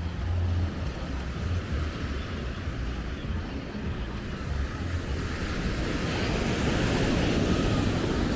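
Sea waves washing onto the beach, with wind buffeting the microphone in low rumbles. A wave's wash swells louder from about five seconds in.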